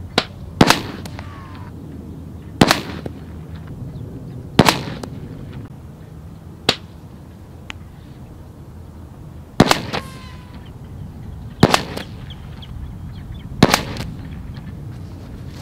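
Cothran .457 big-bore air pistol shots heard from beside the target, each a sharp crack with a short ring after. There are three shots about two seconds apart, then a longer pause with a couple of faint ticks, then three more at the same pace.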